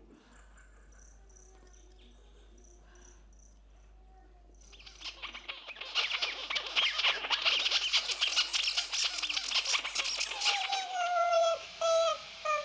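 Live stage soundscape made with electronics and microphones. It opens with faint, evenly repeated high chirps like insects. About five seconds in, a dense crackling, rustling texture starts, and near the end a wavering whistle-like tone glides slowly downward.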